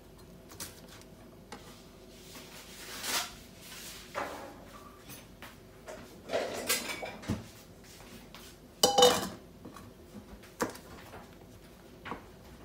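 Chef's knife chopping yardlong beans on a cutting board in a few sharp knocks, with handling rustle, and about nine seconds in a stainless steel bowl clanking down with a brief metallic ring.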